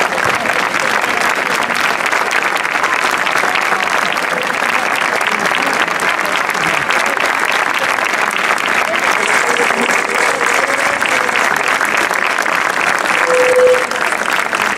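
Audience clapping steadily in sustained applause, with a few voices calling out over it.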